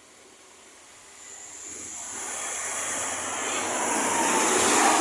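A road vehicle approaching and driving past, its engine and tyre noise building steadily from about a second in to a peak near the end. Its pitch drops slightly as it goes by.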